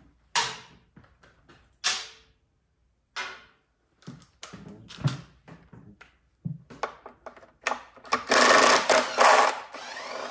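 Power driver whirring in short bursts, backing out screws from the engine's shrouds, with clicks and knocks of parts being handled. About eight seconds in comes a longer, louder two-second run.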